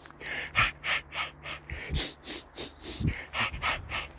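Footsteps crunching on a gravel path at a walking pace, about three steps a second.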